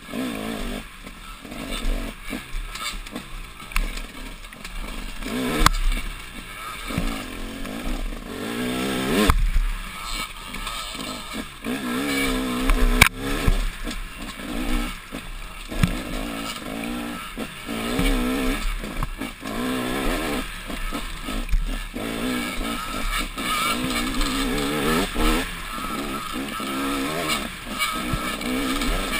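Dirt bike engine running hard, its pitch rising and falling as the rider works the throttle, with a few sharp knocks along the way.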